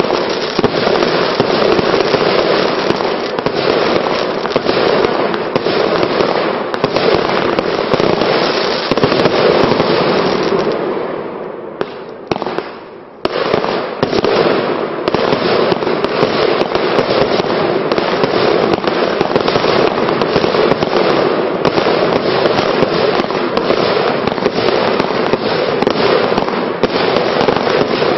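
Vulcan 'Sydney' 100-shot compound fireworks cake firing a rapid, continuous string of shots and crackling bursts. Around eleven seconds in the firing fades to a brief lull, then starts again abruptly about two seconds later.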